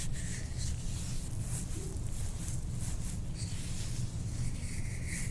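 Short rustles and light clicks from a chiropractic adjustment, as the patient is moved on the treatment table and the practitioner works on the back, scattered irregularly over a steady low hum.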